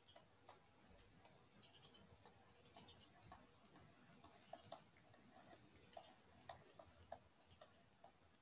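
Near silence with faint, irregular ticks and taps of a stylus pen on a writing tablet as words are handwritten, a few per second.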